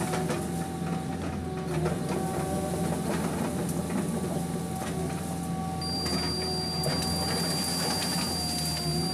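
PC200 hydraulic excavator heard from inside its cab: the diesel engine runs steadily under a wavering hydraulic whine, with scattered cracks of brush and branches as the arm works through the vegetation. A thin, high steady tone joins about six seconds in.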